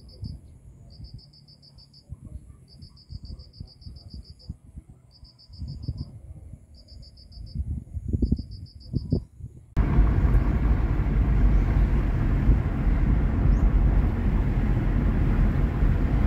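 An insect chirping in short, quick trills that repeat every second or so, over low gusts of wind noise. About ten seconds in, this cuts to the loud, steady road and engine noise of a car heard from inside the cabin.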